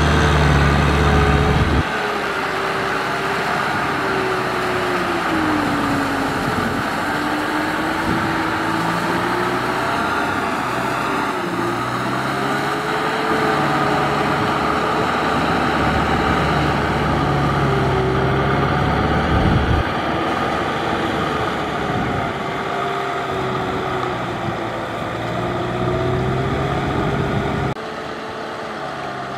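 Kubota M6040SU tractor's four-cylinder diesel engine running under load as it pulls a rotary tiller through wet paddy mud, its pitch slowly wavering up and down. The sound drops abruptly in level about 2 s in and again near the end.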